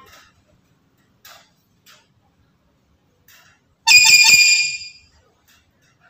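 Black-capped lory giving one loud, shrill call about four seconds in, lasting about a second, after a few faint soft sounds.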